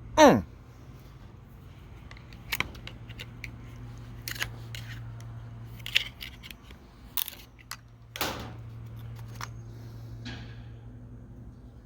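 Clicks and clacks of hand tools and chainsaw parts being handled while a Husqvarna 550 XP chainsaw is taken apart, with a brief squeak falling in pitch right at the start and a steady low hum underneath.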